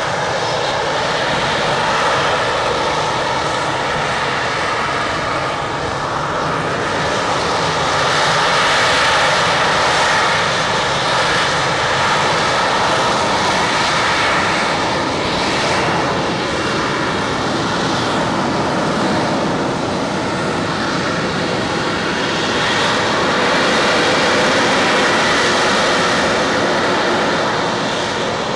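Harrier jump jet's Rolls-Royce Pegasus vectored-thrust turbofan in a hover, a loud, steady jet roar that swells and eases a little as the aircraft holds position.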